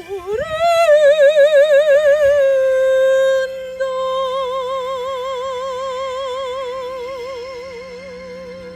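Solo soprano singing sustained high notes with wide vibrato: a leap upward about half a second in, then long held notes with a short breath about halfway, fading toward the end.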